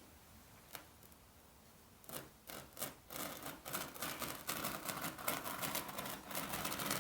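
Carpet being worked by hand: after a quiet start with one click, quick scraping and rubbing strokes on the carpet begin about two seconds in and come thick and fast.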